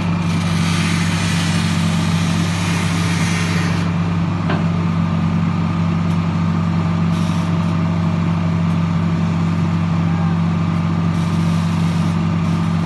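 Diesel engine of a Tata Hitachi EX 350 long-reach excavator running steadily under working load, with a steady low drone. A hiss rides over it for the first four seconds or so, then drops away.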